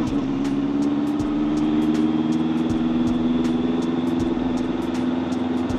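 Honda CBR650F's inline-four engine running at a steady cruise in second gear, its note holding an even pitch.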